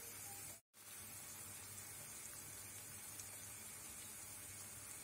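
Faint sizzling of chopped spinach and onions frying in olive oil in a pan, a steady soft hiss that drops out briefly about half a second in.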